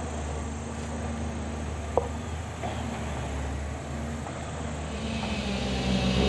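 An engine running steadily at a low idle, with one short click about two seconds in and the sound growing louder near the end.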